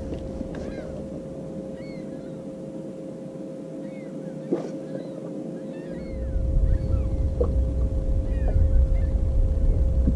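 Steady whine of a bass boat's bow-mounted electric trolling motor, with short high chirps and a few light clicks. Wind rumbles on the microphone, strongest from about six seconds in.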